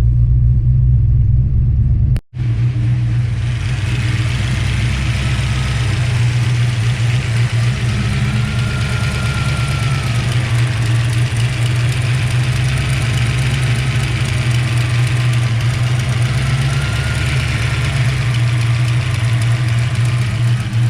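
Ford 5.0 L (302) small-block V8 with a Summit F303+ camshaft idling steadily, freshly fitted with longer 6.300 in pushrods and its valve lash reset. The sound cuts out briefly about two seconds in.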